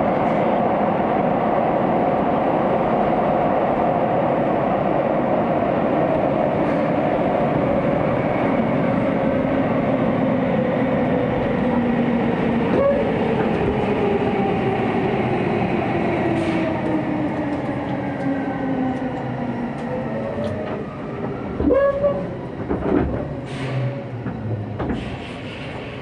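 Hokuso Railway 9000-series electric train heard from inside the car: steady running noise from wheels and motors, then the train brakes for a station. Its motor whine falls in pitch and the noise dies down, with a few short clunks near the end.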